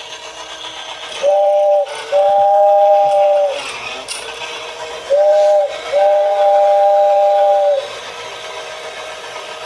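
Vintage Japanese tin toy train sounding its two-note horn twice, each time a short blast followed by a longer one of one and a half to two seconds, with the toy's motor and wheels running steadily between.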